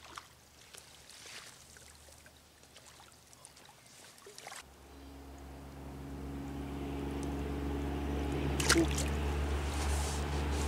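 Faint stream water with small splashes and clicks from a hooked trout being played. About halfway a steady low hum with a rushing noise comes in and grows steadily louder, with a sharp knock near the end.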